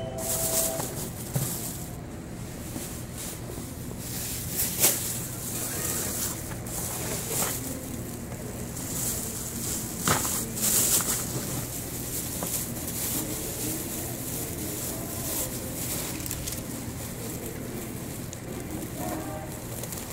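Store background: a steady low hum with faint, indistinct voices and a few sharp clicks or knocks.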